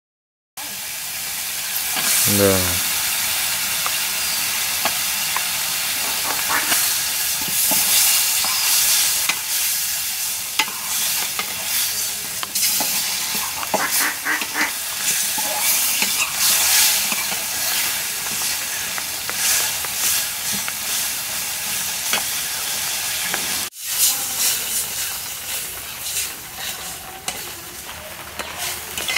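Hilsa fish-head pieces frying in hot oil in a metal karai, sizzling steadily while a metal spatula stirs and scrapes the pan. A short pitched squawk about two seconds in.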